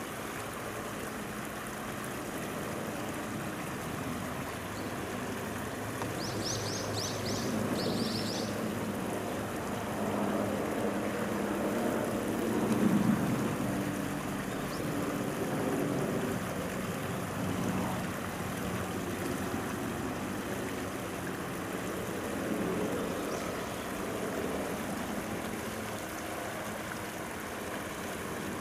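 River water flowing steadily, with two quick runs of high chirps about six to eight seconds in.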